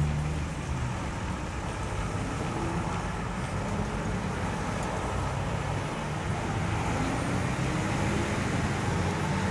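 Steady road traffic noise, an even rumble and hiss of passing vehicles.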